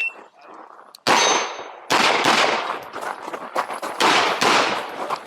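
9mm handgun fired in a rapid string during an IPSC course of fire. A first shot comes about a second in, a second shot follows just under a second later, and then shots come several a second, each a sharp crack with an echoing tail.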